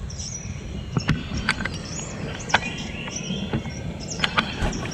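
Night insects chirping in short high calls, cut through by several sharp knocks and clicks and close rustling, which the camper takes for monkeys moving all around the tent.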